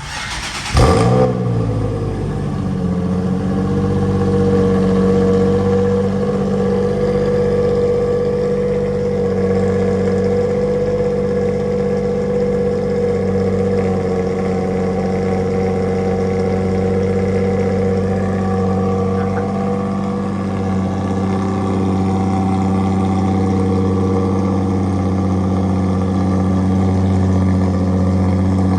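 Nissan 350Z's V6 catching on a jump-started cold start after sitting about a week: a loud flare about a second in, then the revs sink and it settles into a steady idle through the aftermarket exhaust.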